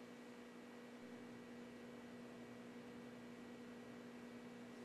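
Near silence: a faint, steady hum with light hiss.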